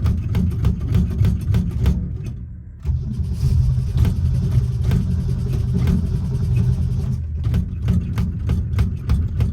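Old Ford Falcon's engine running roughly with an uneven, pulsing beat after a hard start. About two seconds in it fades away almost to a stall, then abruptly picks back up and keeps running.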